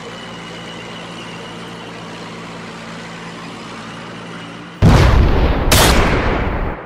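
Steady low background drone, then near the end two loud blasts about a second apart, battle sound effects that die away with a long tail.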